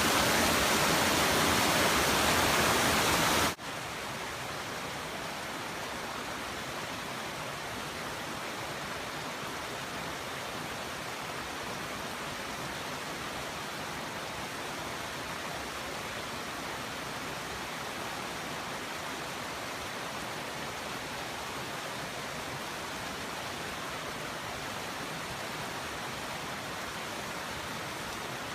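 Water rushing over a small waterfall in a steady, even hiss. It is loud at first and then suddenly drops to a quieter, equally steady rush about three and a half seconds in.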